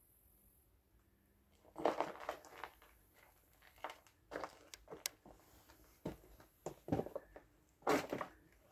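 Footsteps crunching over debris on a floor: irregular crunches and crackles with a few sharp clicks, starting about two seconds in after a quiet start.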